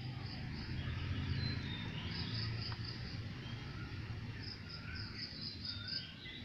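Outdoor garden ambience of insects and birds. Runs of high, evenly repeated chirps, about five a second, come and go over scattered short bird calls, with a low steady hum underneath.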